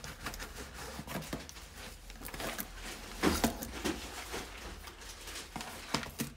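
Cardboard shipping box and plastic-wrapped packaging being handled: irregular rustling, scraping and light knocks as a box is pulled out of a carton.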